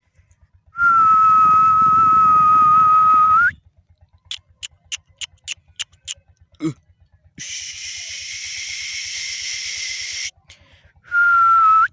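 A long, steady whistle at one pitch, then a quick series of sharp clicks and a few seconds of hiss, and a second, shorter whistle near the end.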